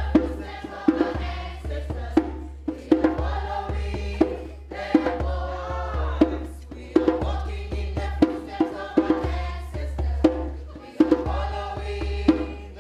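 African-style music with voices singing over a steady beat, marked by sharp percussion hits about once a second.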